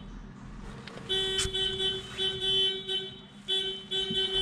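Vehicle horn sounding in several blasts at one steady pitch, some short and some longer, with gaps between them. A short click comes about one and a half seconds in.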